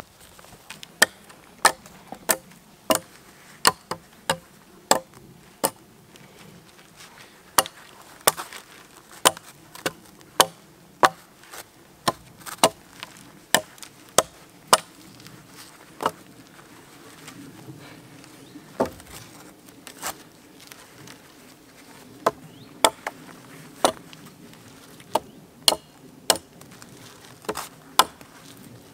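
Hatchet striking wood in a steady run of sharp blows, about one and a half a second, broken by a few short pauses.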